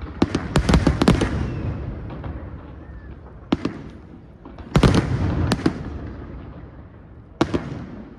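Fireworks of a castillo (firework tower) display going off in sharp bangs with a rumbling echo after each: a rapid cluster of reports just after the start, a single bang about three and a half seconds in, another cluster around five seconds, and one more near the end.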